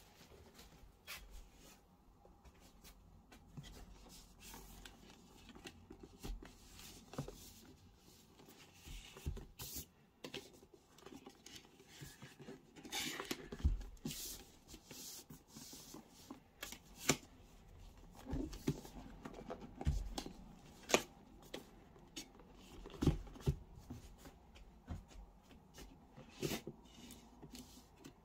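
Rigid cardboard box set being handled: a lid sliding off and card boxes and disc cases set down on a desk, with soft rubbing and scattered taps and thumps, the louder thumps in the second half.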